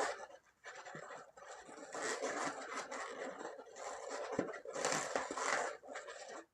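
Twisting balloons: latex rubbing and scraping against itself in long stretches broken by short pauses.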